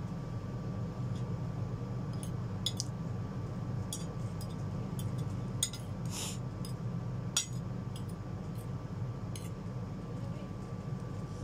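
A metal spoon and fork clinking and scraping against a ceramic plate of instant noodles, a dozen or so scattered sharp clinks over a steady low hum.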